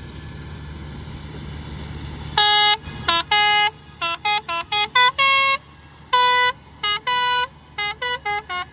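A vehicle engine running steadily, then a horn sounding a quick tune of about a dozen short and longer toots at changing pitches, starting a little over two seconds in.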